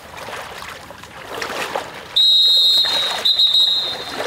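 A high, steady whistle blown in two long blasts of about a second each, with a short break between them, starting about two seconds in, over a soft steady hiss.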